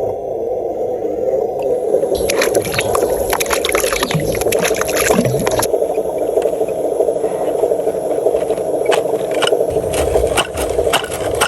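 Radio-controlled truck driving through water and mud: a steady motor drone with churning water. Bursts of scraping and clicking come from about two to six seconds in and again near the end.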